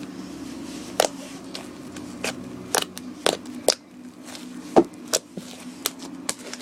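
Slime being mixed: irregular sticky clicks and pops, about a dozen, over a steady low hum.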